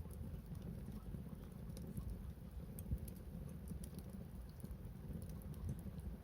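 Wood bonfire crackling: scattered small sharp pops and ticks over a low steady rumble.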